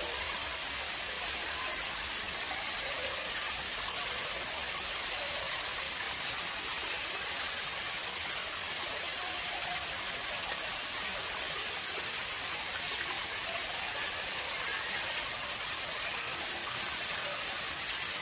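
Water flowing and splashing steadily into an artificial pond, a constant even rushing sound.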